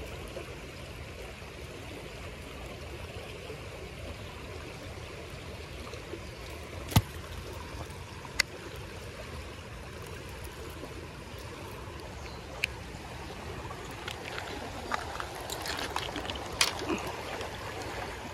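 Shallow creek running steadily over rocks. A few sharp clicks stand out, the loudest about seven seconds in, with a scatter of small ticks near the end.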